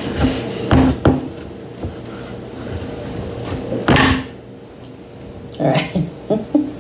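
A small knife stabbing and sawing into the hard rind of a raw, unsoftened spaghetti squash on a wooden cutting board, giving sharp knocks as the squash and knife bump the board: a couple about a second in, a louder one about four seconds in, and a quick cluster near the end.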